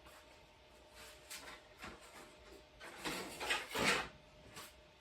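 Handling noise as a painted plywood cutout is fetched and moved: a few light knocks and rubs, then a burst of scraping and sliding, loudest just before four seconds in.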